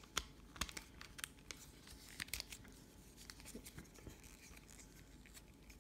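Faint, scattered clicks and light scrapes of a plastic Transformers figure's parts being moved and folded by hand during transformation.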